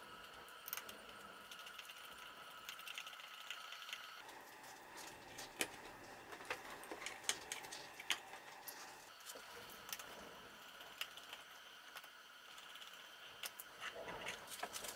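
Faint scattered clicks and small handling noises of wire leads being fitted into a stepper driver's green plug-in terminal blocks and tightened with a small screwdriver. A faint steady whine sounds for the first four seconds.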